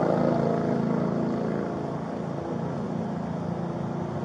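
A motor vehicle's engine running, growing fainter over the first couple of seconds and then settling to a steady lower hum.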